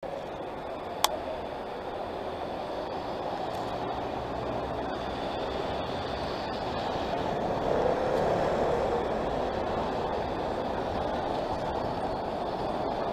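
Steady noise of street traffic, with a single sharp click about a second in.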